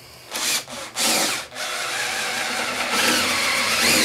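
Power drill spinning a 72-inch flex auger bit down through a wooden fire stop inside a wall cavity. It starts with a few short pulses, then runs steadily, its speed rising and falling under load as the bit bores through.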